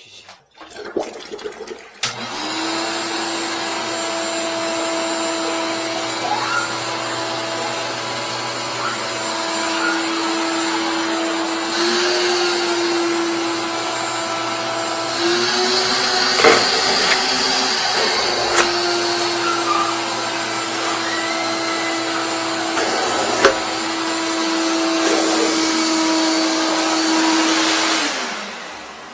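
RIDGID wet/dry shop vacuum switched on about two seconds in and running steadily with its hose in a clogged toilet bowl, sucking to pull out an object stuck in the toilet. Its pitch shifts slightly a couple of times with a few sharp knocks, and it winds down near the end.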